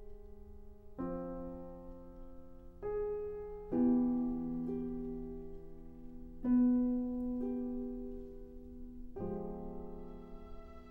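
Piano playing slow, sustained chords: about five are struck in turn, each left to ring and fade before the next, the two in the middle the loudest.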